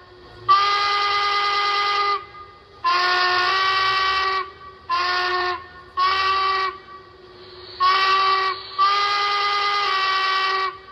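Steam-locomotive whistle from the onboard sound system of a Lionel Legacy brass hybrid O-scale 4-4-0, played through its small built-in speaker. It sounds six blasts: two long, three short, then a long one near the end.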